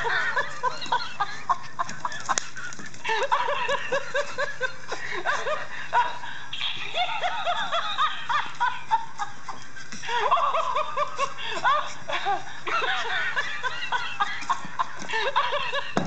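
Laughing monkey plush toy playing its recorded laughter: fast strings of short, high giggling cackles in runs of a few seconds, starting over several times. Light knocks and scuffs come through as a Yorkshire terrier tussles with the toy.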